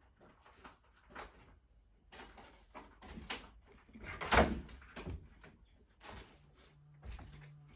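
A door being opened and handled inside a house, among a run of irregular knocks and scuffs; the loudest comes about four seconds in. A low steady hum comes in about six seconds in.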